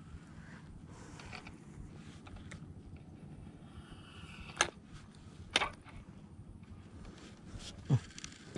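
Handling noise from a fishing rod and spinning reel as a fish is pulled in. Two sharp clicks come about a second apart midway, and a dull thump near the end is the loudest sound.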